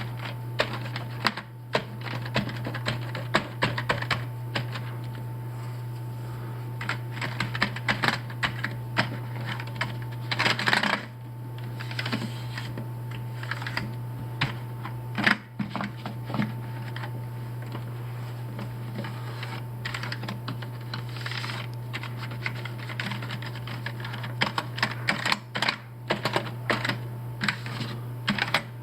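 Computer keyboard keys clicking and rattling irregularly as the keyboard is wiped down with a cloth to take off excess rubbing alcohol, with a couple of longer rubbing sweeps. A steady low hum runs underneath.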